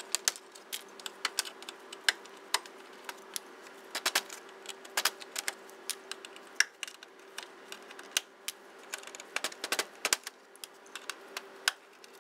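Plastic pushpin retainers on a radiator cover being pried up and popped out with a trim tool: a long run of sharp, irregular plastic clicks and taps.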